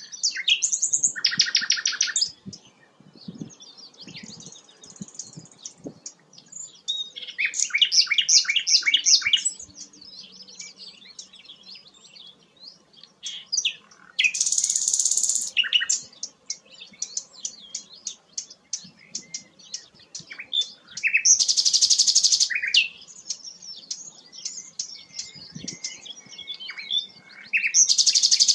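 Songbird singing a long, varied song of quick chirps and whistled notes, broken several times by loud, dense, rapid trills lasting a second or two.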